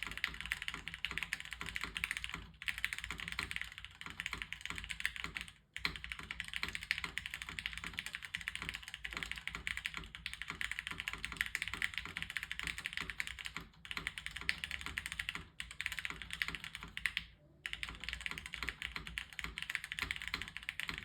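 Fast, continuous typing on a Martingale prototype mechanical keyboard with lubed, broken-in Cherry MX Hyperglide black linear switches in an aluminium plate, under CRP R3 keycaps. A dense run of key clacks, broken by a few short pauses.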